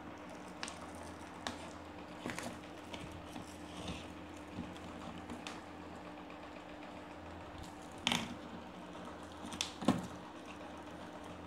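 Plastic drink pouch crinkling as a straw is worked into its small hole, with scattered small crackles and two louder crinkles near the end. A faint steady hum runs underneath.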